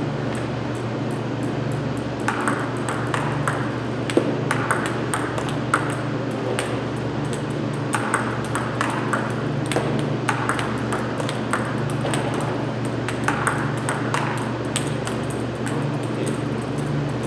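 Table tennis rally: a celluloid ball clicking off paddles and the table, several light hits a second in an irregular rhythm, over a steady low hum.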